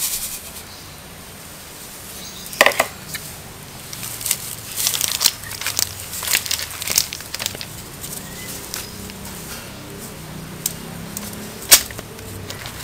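Granulated sugar pouring into a bowl of eggs, ending just as it begins, then scattered handling noises: light rustles and clicks, with a sharper knock about three seconds in and another near the end.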